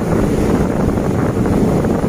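Steady rushing noise of a moving passenger train heard from inside the carriage, with wind buffeting the microphone at the open window.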